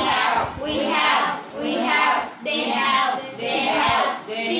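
A class of children chanting "I have" in unison over and over as a pronunciation drill, about one phrase a second.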